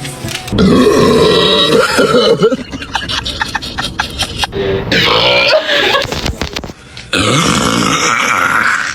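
Long drawn-out burps after drinking Sprite, three in a row, each lasting about two seconds, with a run of quick clicks between the first and the second.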